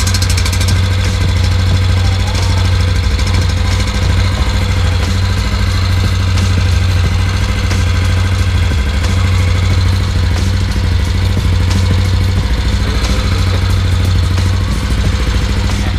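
Yamaha Aerox 155 scooter's single-cylinder four-stroke engine idling steadily through a JVT V3 adjustable aftermarket exhaust set to its mid setting. The note is deep and bassy.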